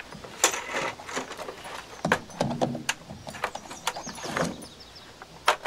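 Clicks, knocks and scrapes of an old portable reel-to-reel tape recorder's plastic case being handled and turned over on a wooden table.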